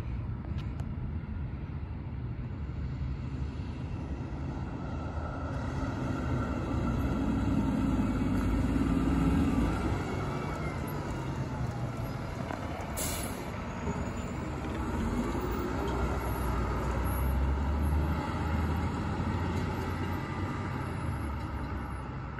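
Fire engine driving past on the street, its engine and tyre noise swelling and fading, then slowing to turn into its station. A brief sharp hiss comes about halfway through.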